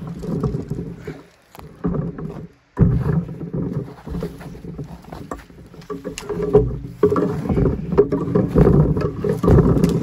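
Footsteps crunching and rustling through dry fallen leaves and crusted snow, with twigs and branches brushing and scraping past, in uneven bursts with two short pauses in the first few seconds.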